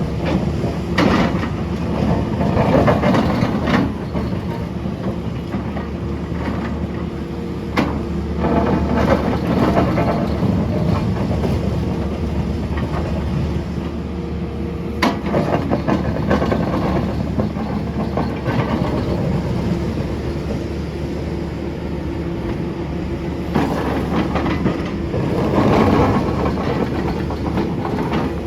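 SANY SY500H hydraulic excavator's diesel engine running under load, swelling and easing as it works, with a handful of sharp metallic clanks and rough scraping as the ripper works the ground.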